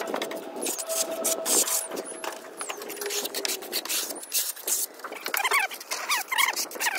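Hand trowel scraping a wet coating across a masonry wall in quick repeated strokes. Birds chirp over it, with a busy run of short calls in the last couple of seconds.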